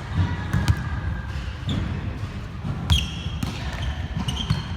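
Volleyball play in a gym: sharp hits of the ball, the loudest about three seconds in, with short high squeaks from shoes on the court floor over the hall's low rumble.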